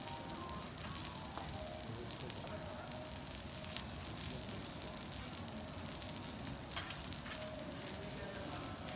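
A block of wagyu beef sizzling on a flat steel teppanyaki griddle: a steady frying hiss with small crackles and pops scattered through it.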